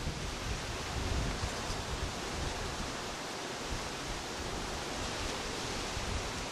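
Steady outdoor wind noise with an even hiss, and wind rumbling on the microphone in the first second or two.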